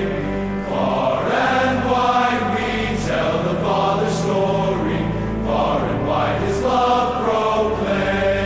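Intro music of chant-like vocals held over a steady low drone.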